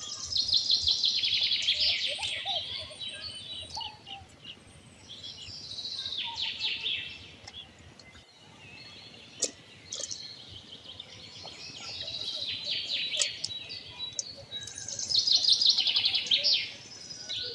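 A songbird singing: phrases of fast, repeated notes that fall in pitch over a second or two, heard four times. There is one sharp click about nine seconds in.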